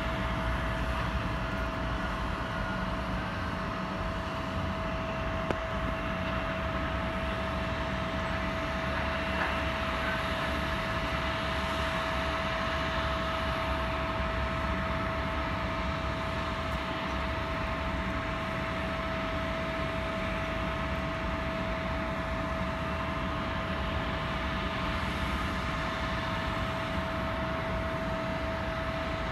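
Steady aircraft noise at an airport: an even drone with a constant high-pitched whine, unchanging throughout.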